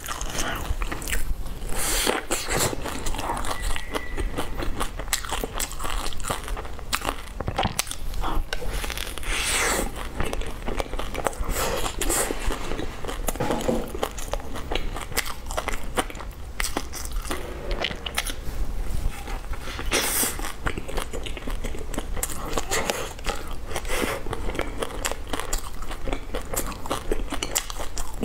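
Close-miked eating sounds of a person biting into and chewing a cheese-filled bun topped with pork floss and seaweed flakes, with frequent sharp crackly clicks as she chews.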